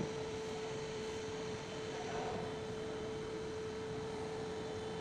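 A steady, single-pitched mid-range hum that holds unchanged throughout, over a faint background hiss.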